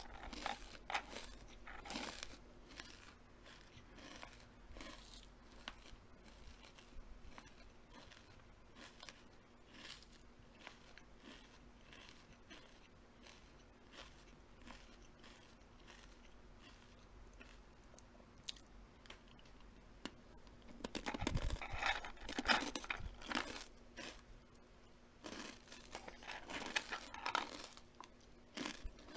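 Close-up eating sounds: small crisp crunches and chewing, scattered and soft for most of the time, then a busier, louder spell of crunching about two-thirds of the way through and again near the end.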